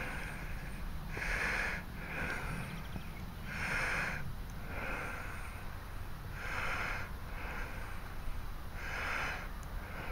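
A person breathing close to the microphone: four slow breaths about two and a half seconds apart, each a louder breath followed by a softer one, over a low steady rumble.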